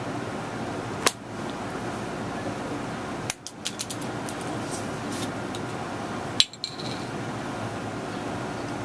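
A glass 40-ounce malt liquor bottle picked up and handled, with a click about a second in, a quick run of small clinks and knocks around three and a half seconds, and a sharp knock about six and a half seconds in, over a steady background noise.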